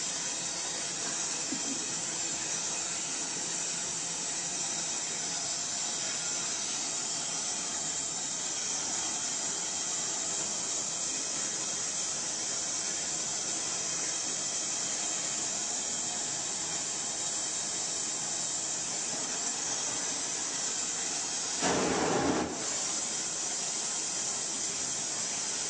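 Steady hiss of a gas torch flame heating the bronze trophy during hot patination, with one brief louder surge near the end.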